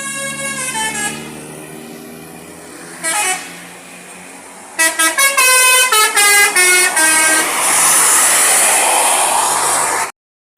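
A tour bus's telolet horn, a multi-tone musical air horn, playing tunes. A chord of horn notes steps down in pitch and fades in the first second, a short blast comes about three seconds in, and a quick run of short notes follows about five seconds in. After that a loud rush of noise lasts until the sound cuts off abruptly.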